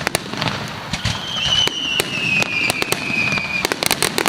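Fireworks going off in quick, scattered sharp cracks and pops. About a second in, a high whistle starts and slowly falls in pitch for a couple of seconds.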